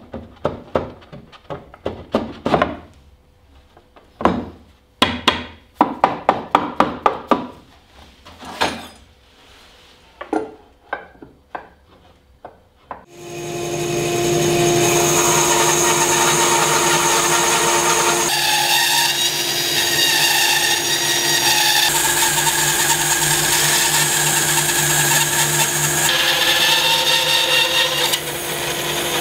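Short strokes of a hand tool working wood, at times in quick runs of about four a second. About halfway through, an electric power tool spins up and then runs steadily.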